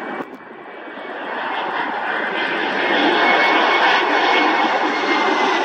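Jet engines of a Boeing 767 coming in to land, growing louder over the first three seconds as it nears, then holding steady, with a high whine running through the rushing engine noise.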